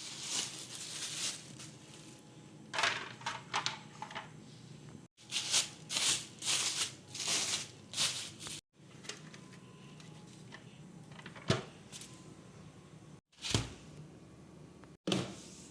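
Kitchen items being handled, with rustling and clattering bursts and light knocks, and a dull thud past the middle. The sound is broken by several brief dropouts.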